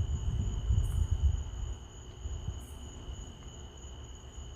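Crickets trilling steadily in two high, even tones, with a low rumble during the first second and a half.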